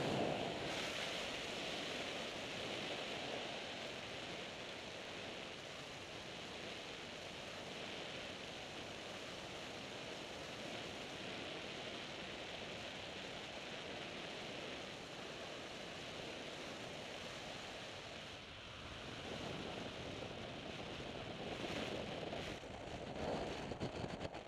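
Steady rushing wind noise on the camera's microphone from the airflow of flying under an open parachute canopy, swelling louder for a few seconds near the end.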